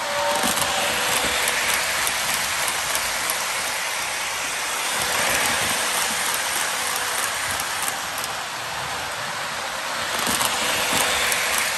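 Lionel O-gauge LionChief Hogwarts Express train running on FasTrack: a steady rolling hiss of wheels on the rails that swells as the tender and cars pass close, loudest near the end.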